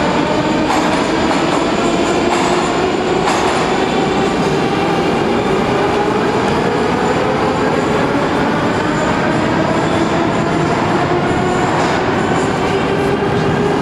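Moscow metro train pulling out of an underground station: the motor whine rises slowly in pitch as it gathers speed, over a loud steady noise of wheels on rails.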